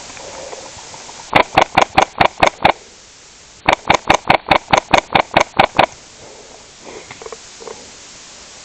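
Daytona MSK/ACR airsoft rifle firing two quick strings of shots, about eight and then about eleven, at roughly six shots a second, with a short pause between them.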